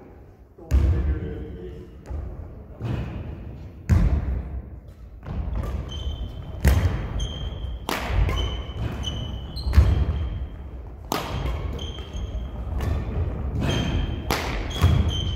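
Badminton doubles rally: rackets hitting the shuttlecock about once a second, with players' footsteps thudding on the wooden gym floor. From about six seconds in there are short, high sneaker squeaks on the floor.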